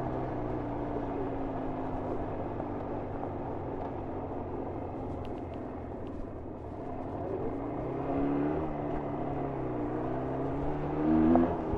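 1994 Jawa 350 two-stroke twin engine under way. Engine speed eases off through the first half, picks up again about two-thirds in, and rises sharply under throttle near the end.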